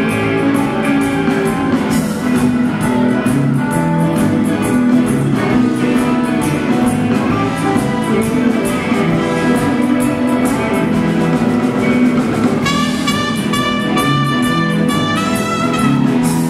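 Live rock band jamming, with electric guitars and a drum kit. About three-quarters of the way through, brass led by a trumpet comes in with held notes over the band.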